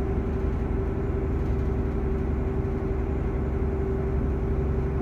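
Cruise boat's engine running steadily: a constant low rumble with a steady droning tone over it.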